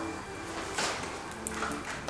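Quiet handling noises of food items on a counter: a brief soft swish a little under a second in, then a few light clicks.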